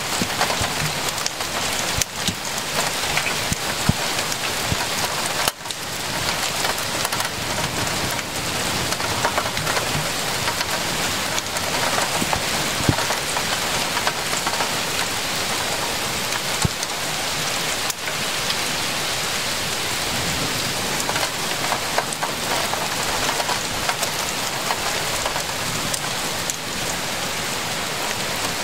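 Heavy rain pouring steadily onto roofs and a wet street, with scattered sharp ticks of drops striking close by.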